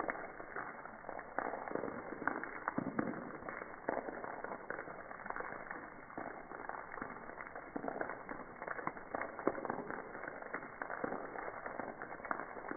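Rain water falling off a roof and splashing onto wet concrete. The sound is slowed down with the slow-motion footage, so the drops land as an uneven stream of deep, drawn-out splashes over a steady wash of water.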